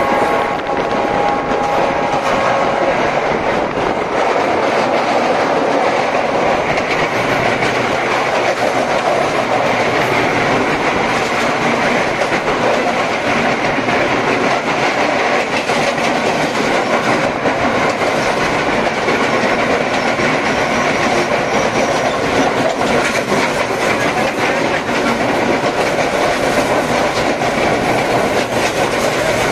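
Two passenger trains running side by side at speed on parallel tracks, heard from the open doorway of one: a loud, steady rumble and clatter of wheels on rails. A held tone at the start stops about two and a half seconds in.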